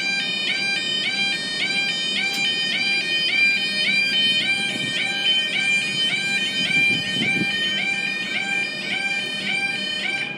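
UK level crossing yodel alarms sounding a fast, evenly repeating warble, each note rising and then holding, as the barriers lower. They cut off suddenly near the end, once the barriers are down.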